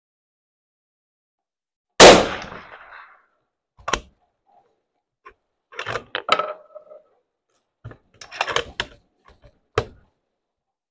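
A single .308 Winchester rifle shot about two seconds in, a sharp crack with a short echoing tail, from a 1975 Soviet-made cartridge. It is followed by a run of metallic clicks and clacks as the rifle's bolt is worked: opened, the spent case ejected, and a fresh round chambered and the bolt closed.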